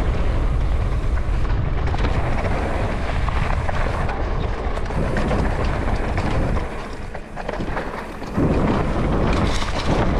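Downhill mountain bike descending a dry dirt trail at speed: wind buffeting the bike-mounted camera's microphone over the rumble and crunch of tyres on dirt. It drops quieter for about a second and a half near the end, then comes back loud.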